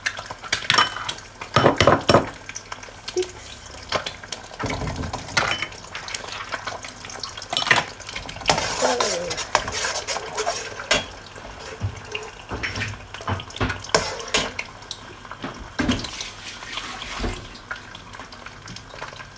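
A metal spoon knocking and scraping against a steel wok at irregular moments while eggs fry in oil.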